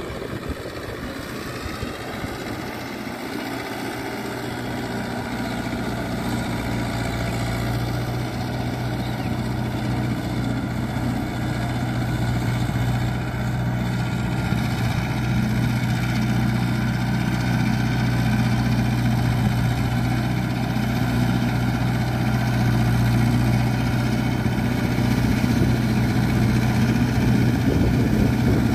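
A Mahindra Yuvo 585 DI tractor's four-cylinder diesel engine runs steadily under load as the tractor works a rotavator through wet paddy field. The sound grows gradually louder as the tractor comes closer.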